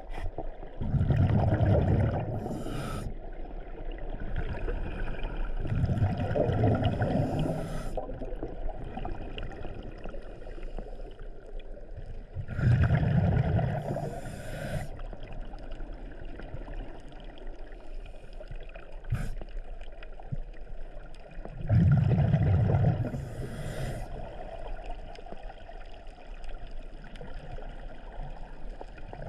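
Scuba diver breathing through a regulator underwater: four bursts of exhaled bubbles rumbling a few seconds apart, each with a short hiss near its end, and a fifth starting right at the end.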